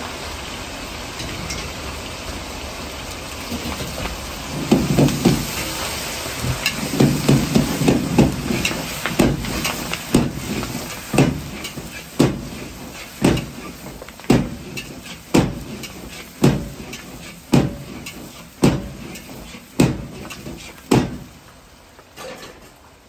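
Metal ladle and iron wok clanking as chicken and green onions are stir-fried and tossed over a running gas wok burner. From about four seconds in the clanks come about once a second, then the whole sound drops away near the end.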